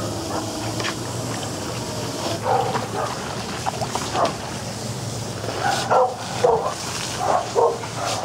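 Dogs barking and yipping in short separate calls, mostly in the second half, over a steady low hum.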